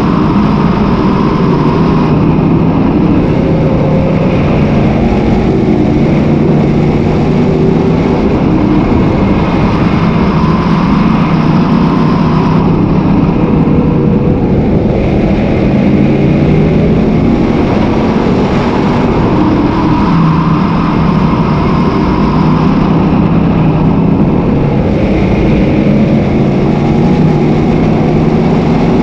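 Sportsman modified dirt race car's V8 engine at racing speed, heard loud from inside the cockpit. The revs climb and then fall away again and again as the car drives through successive straights and corners.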